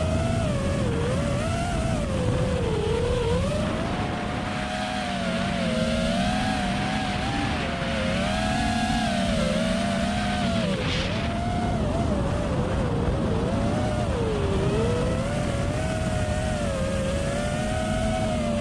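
Motor and propeller whine of a 5-inch FPV quadcopter with 2008-size 1950 kV motors on 6S, its pitch rising and falling constantly with the throttle as it flies.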